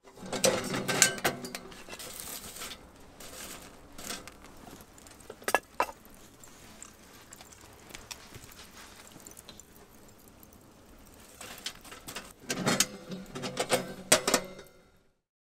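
Metallic clinks and rattles from a small steel wood stove's door and fittings being handled, in three clusters: about half a second in, around five and a half seconds, and from about twelve and a half to fourteen and a half seconds. The sound cuts off suddenly just before the end.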